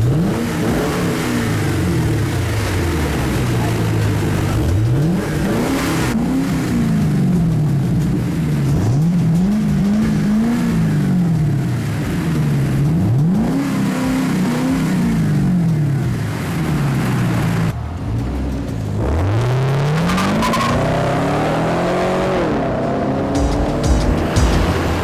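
Chevrolet Camaro engine revved again and again through an aftermarket exhaust with an X-pipe and no resonator, each rev climbing then falling back toward idle, about five or six times.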